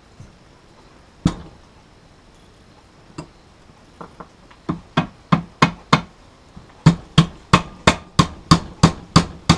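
Hammer blows driving the outboard's power trim tilt unit into its bracket so the shaft seats in tight nylon bushings: a couple of single knocks, then a steady run of about three blows a second that gets louder in the last few seconds.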